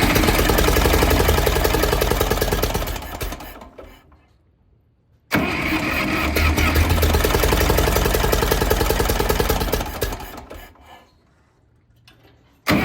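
Massey Ferguson 204's Continental gas engine running steadily after an oil and filter change, being checked for leaks at the oil filter. The sound fades away to near silence twice and starts again suddenly each time.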